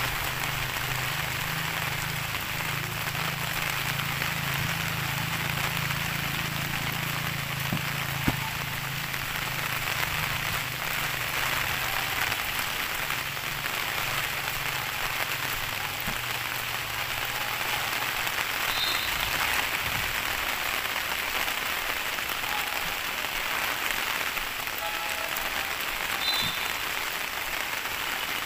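Heavy tropical rain falling steadily on grass, palm leaves and a concrete footpath, a constant even hiss.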